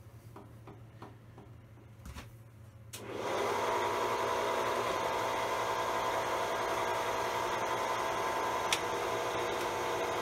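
A few faint ticks, then about three seconds in an electric motor on the milling machine starts up and runs steadily with a whine, with one sharp click near the end.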